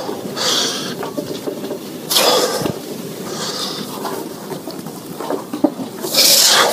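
A man breathing hard close to the microphone: four rushing exhales spaced a second or more apart, over a steady background hiss.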